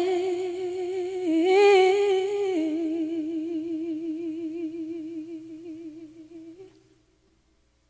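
A single voice holding a long hummed note with vibrato, stepping up in pitch about a second and a half in and back down about a second later, then fading out near the end into silence.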